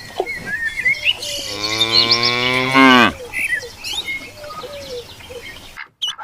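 Cow mooing once: one long call of about a second and a half that drops in pitch as it ends, with birds chirping in the background.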